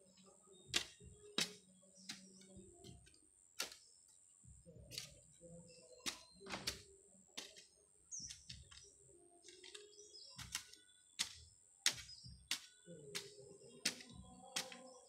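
Hand hoe chopping into loose, dry soil: sharp strikes at an irregular pace of about one a second as a garden bed is dug over, with a steady high-pitched whine behind.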